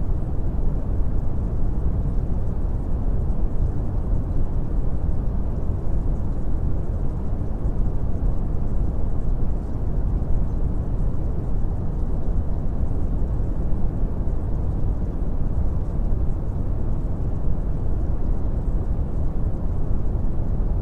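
Brown noise: a steady, deep rumbling hiss with its weight in the low end, unchanging throughout.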